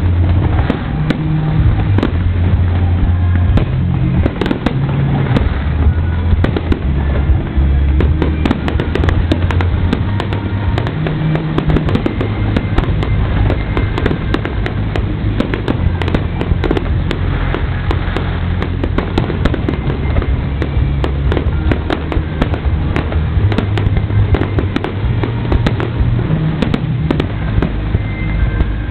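Fireworks display: a continuous barrage of low booms and dense crackling bursts, with music playing underneath.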